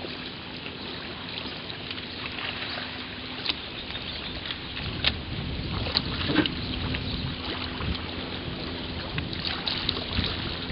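Water lapping and small splashes around a kayak being paddled on a lake, with scattered light knocks and a low steady hum underneath.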